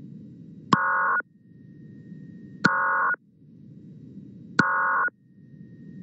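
Slowed-down Emergency Alert System end-of-message data bursts: three half-second electronic screeches about two seconds apart, each opening with a click, over a low steady hiss of slowed radio static. They mark the end of the alert.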